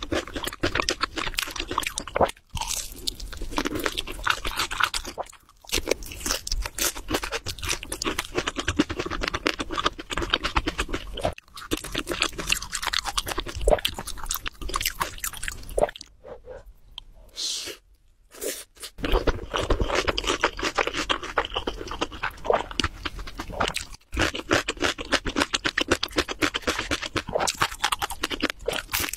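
Close-up crunching and chewing of crispy fried chicken, dense crackly bites nearly throughout, with a few short pauses and a quieter stretch about two-thirds of the way through.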